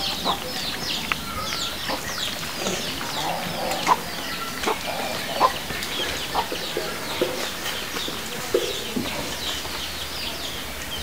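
Chickens clucking amid a dense chorus of short, high, falling chirps from birds, with a few louder single calls scattered through.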